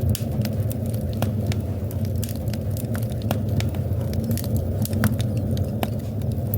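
Wood fire in a fireplace crackling, with many irregular sharp pops and snaps over a steady low rumble of the burning fire.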